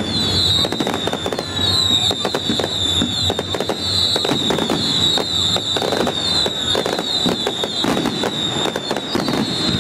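Fireworks display going off in rapid succession: a dense run of bangs and crackles from bursting shells, over a continuous high whistling tone.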